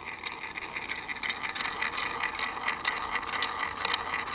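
Small solar-powered DC toy motor whirring steadily through a plastic gearbox, with many small irregular ticks from the gears. It is running weakly on the solar panel's output, with very little torque.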